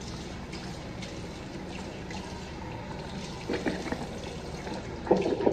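Restroom sink tap running steadily while water is cupped by hand to the mouth to rinse after brushing teeth. Louder splashing comes about three and a half seconds in and again near the end.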